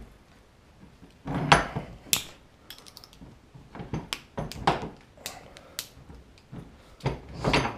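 Steel hand tools clicking, scraping and tapping against the U-joint retaining clips in the yoke of a Dana 44 front axle shaft as a clip that is hung up in its groove is worked out. The sounds come as irregular separate metallic clicks and knocks, the loudest about a second and a half in and a cluster near the end.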